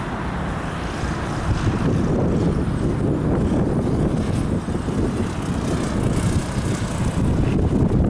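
Cessna 172 light aircraft flying low overhead, its piston engine and propeller a steady drone that grows louder about one and a half seconds in, mixed with wind rumble on the microphone.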